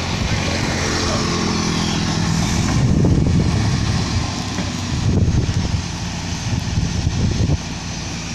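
Caterpillar 120H motor grader running as it moves off along the shoulder with its blade working the gravel, a steady low engine note over a broad gritty noise. The sound drops a step about seven and a half seconds in as the machine draws away.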